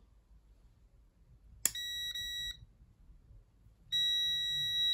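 Multimeter continuity tester beeping as its probes touch the terminals of a toggle switch, showing the switch conducting in that position. A click starts a short steady high beep a little under two seconds in; it cuts out briefly before stopping. A second, longer beep comes near the end.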